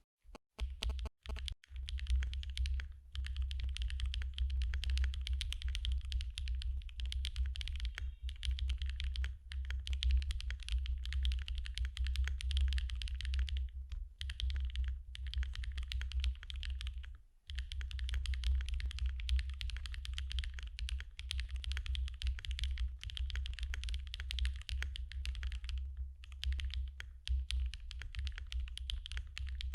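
Fast, continuous typing on a Qk60 mechanical keyboard with an aluminium plate, hand-lubed Gateron x SwagKeys Modern Grey linear switches and Momokei keycaps. The keystrokes run together with two brief pauses partway through.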